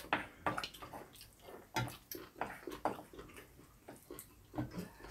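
Close-up eating sounds: wet chewing and lip smacking over bean sprout rice, with light clicks of a spoon and chopsticks on bowls and dishes, in a run of short irregular sounds.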